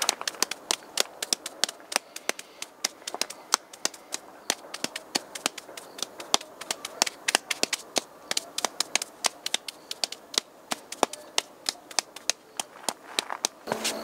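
Stiff brush beaten against damp paper laid on a stone rock face, pressing the paper into the carved characters to prepare an ink rubbing: quick, irregular sharp taps, several a second.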